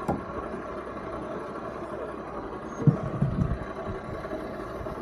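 A jet boat's outboard motor running steadily, with a dull thump about three seconds in.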